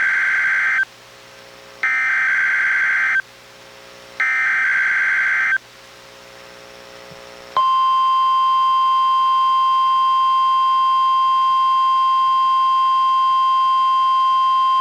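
EAS SAME header data bursts from a NOAA Weather Radio broadcast, played on a Reecom R-1630 weather radio: three short data bursts about a second long each, the first already under way, coding a Required Weekly Test. About seven and a half seconds in, the steady 1050 Hz NWR warning alarm tone starts and holds.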